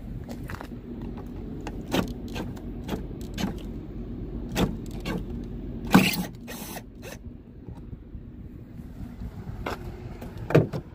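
Scattered clicks and knocks of hardware being handled while oversize-load flags are fitted into a truck's flag holders, loudest about six seconds in and again near the end, over a steady low hum.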